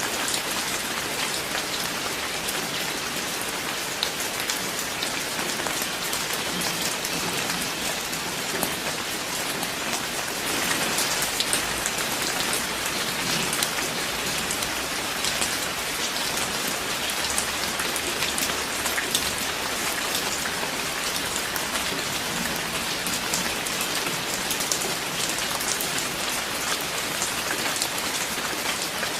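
Steady rain falling, a continuous hiss dotted with many distinct drop ticks; it grows a little heavier about a third of the way in.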